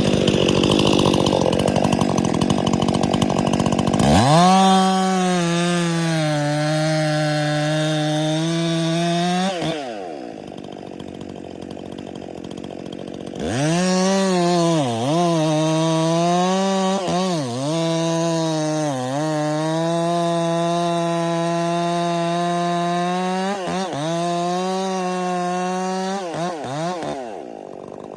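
Stihl MS 261 two-stroke chainsaw held at full throttle, dropping back to idle for a few seconds, then revving again. In the second stretch the revs dip briefly several times as the chain loads in the cut.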